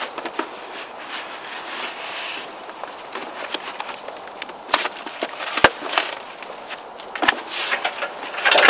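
Cardboard boxes rustling and scraping as an inner box is lifted out of a shipping box, with a few sharp knocks of cardboard. A louder cardboard clatter near the end as the empty outer box is swung aside.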